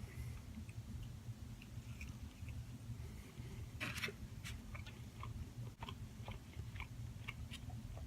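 A person chewing food close to the microphone, with small wet mouth clicks and a louder crunchy bite about four seconds in, over a steady low hum.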